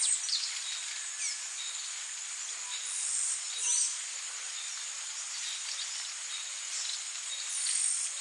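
Tropical rainforest ambience: a steady high-pitched insect drone, with several short descending bird whistles and brief chirps over it.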